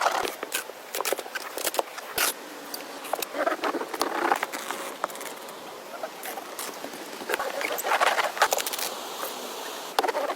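Irregular light clicks, taps and scratchy rustling, coming in uneven bursts with no steady rhythm.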